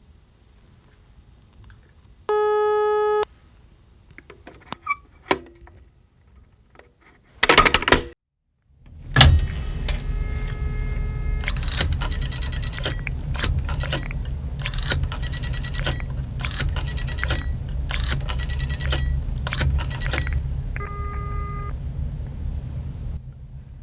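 Old rotary dial telephone: a short steady tone, a few handset clicks and knocks, then a long run of repeated clicking from the dial being turned and returning, over a low hum, with another brief tone near the end.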